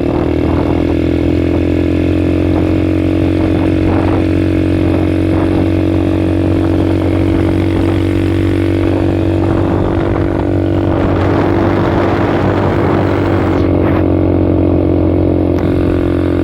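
ATV engine running at a steady speed under way, its pitch holding nearly constant and dipping slightly near the end, with a rushing noise over it for a few seconds in the second half.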